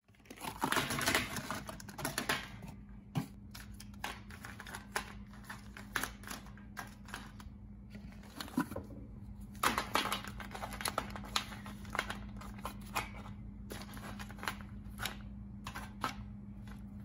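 Plastic K-cup coffee pods being handled and set into a wire basket, giving irregular clicks and clatters throughout, over a steady low hum.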